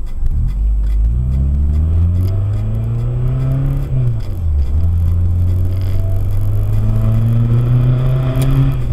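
Honda car's engine pulling away from a standstill, heard from inside the cabin: the pitch climbs, drops at a gear change about four seconds in, then climbs again through the next gear before another shift near the end.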